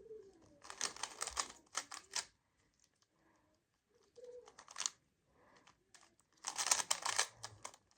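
Speed cube being turned fast by hand: flurries of rapid plastic clicking and clattering as the layers snap round, with short pauses between flurries.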